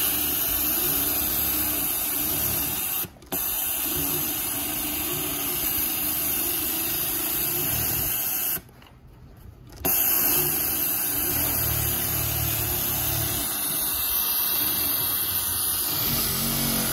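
Kansai Special NFS6604GFMH-LAM-DD-60 flat seamer industrial sewing machine running steadily at speed, stitching through thick 1/8-inch neoprene. It stops for a moment about three seconds in and for about a second past the middle, then runs on until just before the end.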